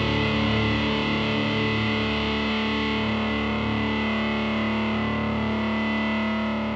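Grunge rock music: a distorted electric guitar chord held and left ringing, starting to fade out near the end.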